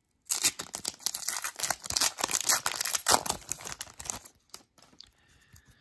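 A hockey card pack's shiny wrapper being torn open and crinkled by hand for about four seconds, then a few faint ticks as the cards are handled.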